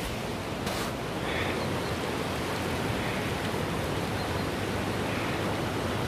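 Mountain stream rushing over rocks: a steady, even rush of water.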